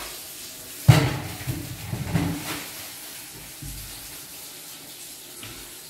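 Tap water running into a kitchen sink as vegetables are washed, with a sharp knock about a second in and a little clatter after it.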